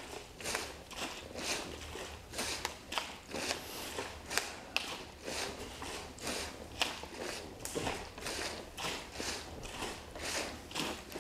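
Repeated rustling of a cotton judo gi against the tatami mat during a lying ab exercise, about two swishes a second, with a few sharp clicks among them.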